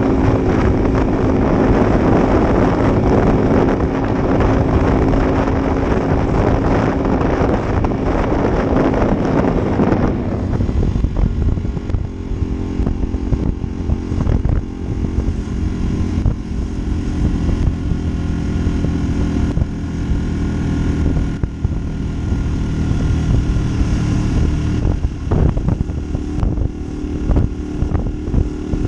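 Honda Varadero 125's V-twin engine running steadily, under a loud rushing noise that drops away about ten seconds in, leaving the steady engine note.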